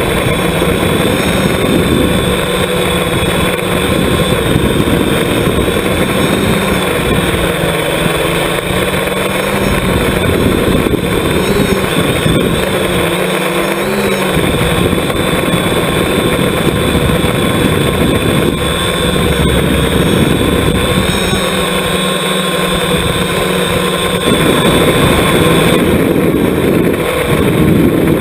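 Electric motors and propellers of a multirotor FPV drone heard close up from its own onboard camera: a steady motor whine over rushing air, its pitch dipping and rising briefly a few times as the throttle changes, and getting louder near the end.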